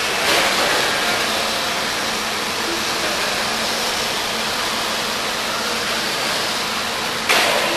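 Steady wash of noise from RC cars racing on an off-road track, with a sudden louder burst near the end.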